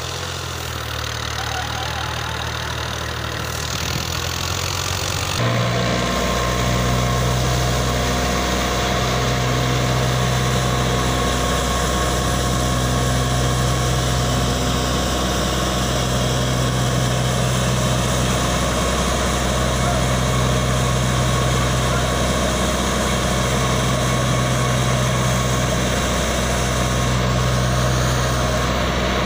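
Fiat 480 tractor's diesel engine running steadily, driving a wheat thresher. About five seconds in the sound gets louder and fuller, with a higher steady hum joining the engine note.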